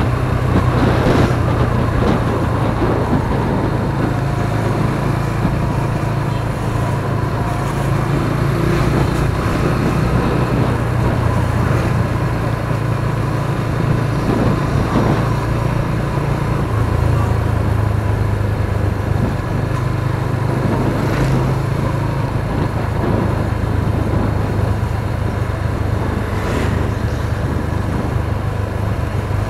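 Motorcycle engine running steadily under way, with wind and road noise; the engine note shifts a little past halfway through.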